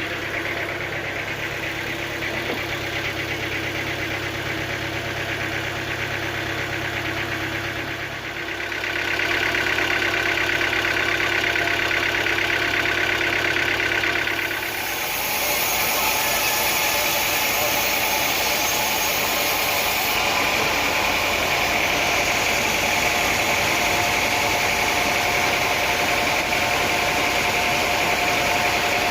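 Sawmill machinery running steadily, a continuous engine-like drone that shifts in tone about 8 seconds in and again about 15 seconds in, turning louder and brighter.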